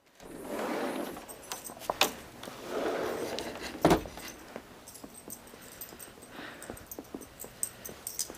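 Light metallic jingling of small pieces of metal, with rustling and two sharp knocks, the louder one about four seconds in.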